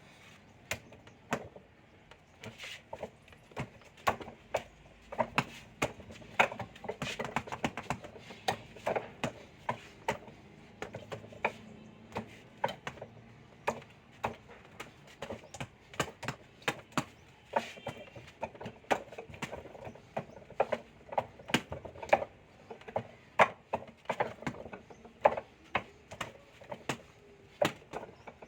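A Wing Chun wooden dummy being struck: a fast, irregular run of hard wooden knocks as forearms and hands hit its arms and trunk, often in quick clusters of two to four.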